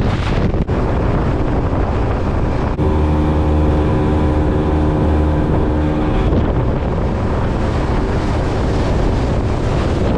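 Heavy wind buffeting the microphone, a loud, even rush with no words, as on a boat moving over open water. About three seconds in, a steady hum made of several pitches joins it for roughly three and a half seconds, then stops.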